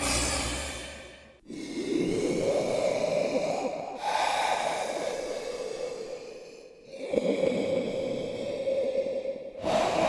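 Dragon creature sound effect: a large beast's breathing and growling in a string of long exhalations. A short breath comes first, then three long ones of about two and a half seconds each, and another begins right at the end.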